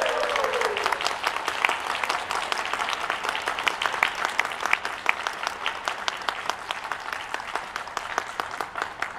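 Audience applauding, the clapping slowly thinning and fading out. In the first second, the last note of the electone slides down in pitch and dies away.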